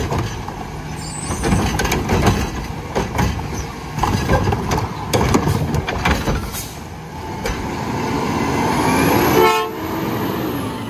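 Front-loader garbage truck's diesel engine running, with repeated clanks and bangs from the truck at work. Near the end the engine note rises, breaks off suddenly and falls away.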